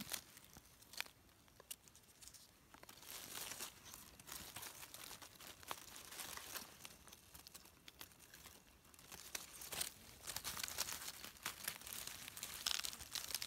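Dry fallen leaves rustling and crackling as a hand brushes through the leaf litter and picks mushrooms out of it. Faint, intermittent crackles and small clicks, a little busier in the second half.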